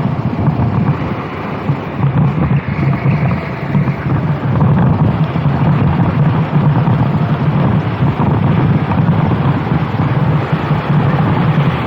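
A kart engine running steadily under load, with wind buffeting the microphone. The engine eases slightly for a second or two near the start, then picks up again.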